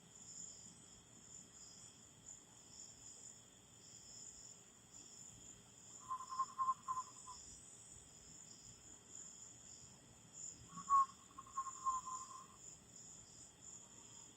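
Steady, high-pitched night chorus of crickets and other insects. Two short, wavering trills like an eastern screech owl's call sound about six and eleven seconds in, each lasting a second or two.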